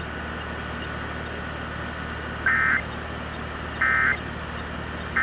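Emergency Alert System end-of-message code on radio: short raspy digital data bursts, about a second and a half apart, two in full and a third starting right at the end. They sound over a steady background hiss and mark the end of the alert.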